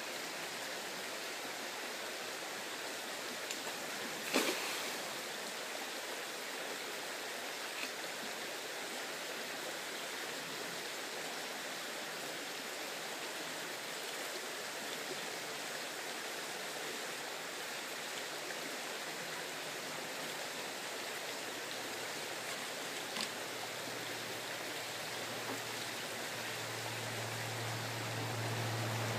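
Shallow creek riffle running steadily. A sudden sharp splash about four seconds in, fainter ones later, and a low rumble rising near the end.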